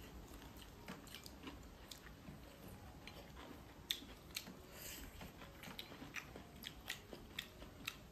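Someone chewing and biting into stewed meat, with irregular small clicks and crunches.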